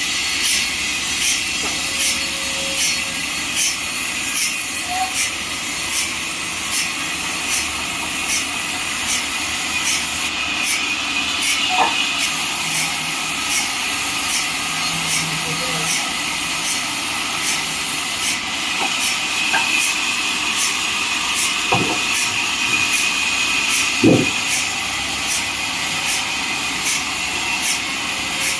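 Bandsaw sawmill blade running through a neem log: a steady high hiss of the cut with a faint regular tick about twice a second.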